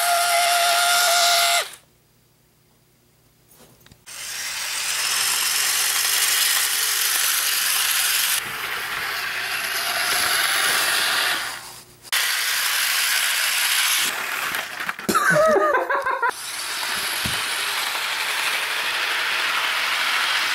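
HO scale model train running along its track close by, a steady rattling, hissy rumble of the wheels and mechanism, cut off by edits several times, with a near-silent gap early on. A brief wavering squeal sounds about fifteen seconds in.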